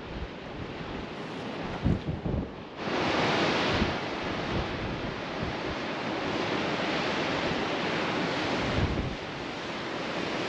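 Surf breaking against the foot of the sea cliffs far below, a continuous rush of waves, with wind buffeting the microphone. The rush grows louder about three seconds in.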